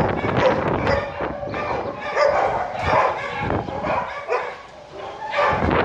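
Dog barking and yipping in a quick run of short calls, easing off briefly about four and a half seconds in.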